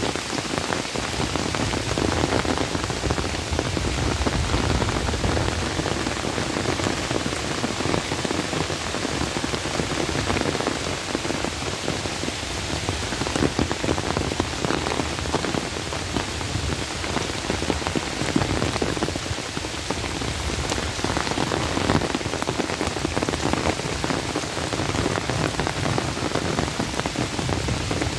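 Heavy rain falling steadily on pond water and the leaves of trees, a continuous even hiss.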